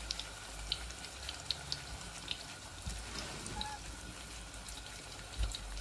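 Bacon pressed into egg-soaked bread frying face-down in hot fat in a frying pan: a steady sizzle with scattered crackles and pops. A soft low thump comes near the end.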